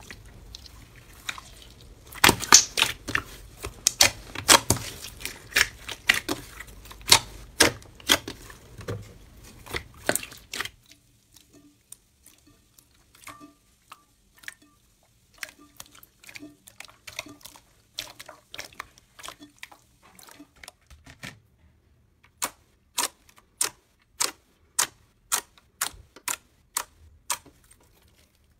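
Hands pressing and kneading clear slime, its trapped air popping in a quick run of sharp clicks. After a change near 11 s the clicks are sparser and quieter, and near the end they come in a steady series of about two a second.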